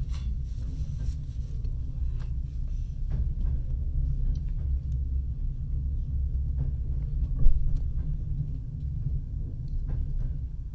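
Passenger train carriage running along the track, heard from inside: a steady low rumble with scattered light clicks and knocks, and one sharper knock about two-thirds of the way through.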